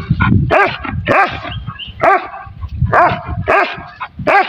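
Dogs barking and yelping in quick succession, about two high barks a second, each rising and falling in pitch, with some overlapping as if more than one animal is calling.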